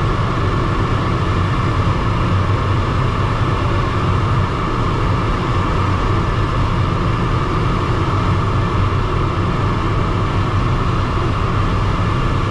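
Steady rush of air streaming over a DG303 glider's canopy and fuselage in flight, heard inside the cockpit as an even, unbroken noise with no engine.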